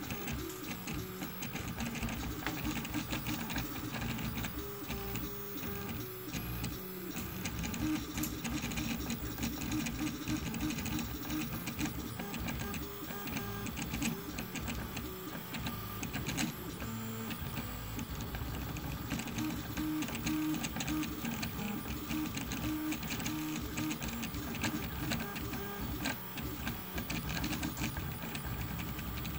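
Rebel II HD desktop 3D printer printing at 70 mm/s: its stepper motors whine in tones that switch pitch every second or so as the print head changes moves, over a steady hiss.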